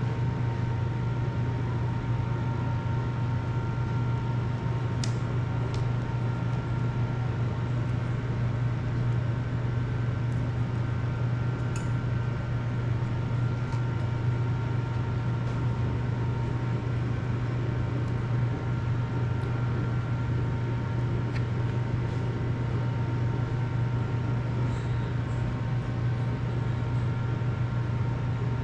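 A steady low hum that holds at one level throughout, with a few faint steady higher tones over it and a handful of faint light clicks scattered through.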